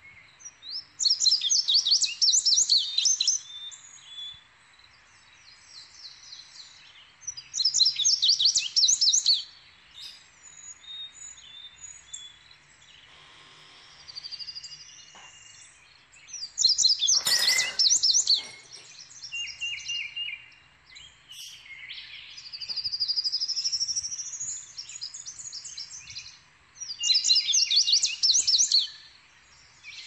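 Male indigo bunting singing: four bright, high songs of quick repeated notes, each about two seconds long and several seconds apart, with fainter bird sounds between them.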